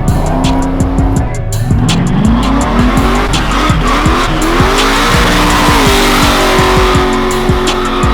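Car engine revving up in several rising pulls and then held at high revs, with tire squeal building over the top. Music plays underneath.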